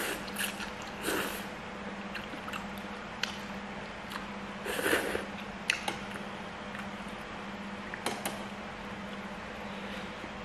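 Instant noodles being slurped in a few short bouts, the longest about five seconds in, with a few sharp clicks of chopsticks against a stainless steel bowl. A steady low hum runs underneath.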